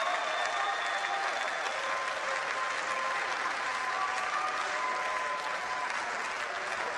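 Stadium crowd cheering a goal at a football match: a steady wash of crowd noise with a few long held tones over it.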